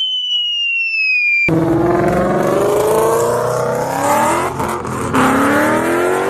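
A high whistle falling slowly in pitch. Then a car engine cuts in suddenly, revving hard as it accelerates. Its pitch climbs, drops once, and climbs again.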